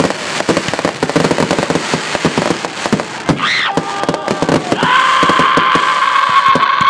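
Fireworks crackling with a dense, rapid run of pops, with a short whistle that rises and falls about three and a half seconds in. From about five seconds in a long, steady high-pitched tone is held over the crackle.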